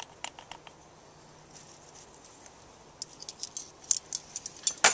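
Light, sharp clicks and clinks of cooking gear being handled: a few at first, coming thick and fast from about three seconds in, and ending on a short louder rattle.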